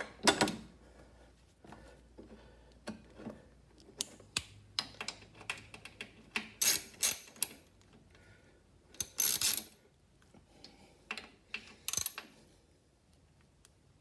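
Socket ratchet clicking in short runs as the starter motor's mounting bolts are snugged up, with scattered single metal clicks and clinks between the runs.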